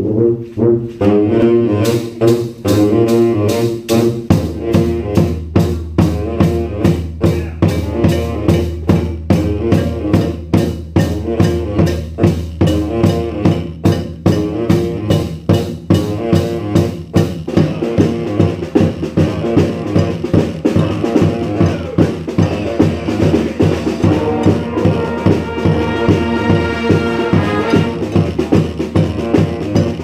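Brass street band playing a rock tune, with horns and drums. A steady drum beat comes in about two seconds in, a low bass part follows, and higher horn lines join near the end.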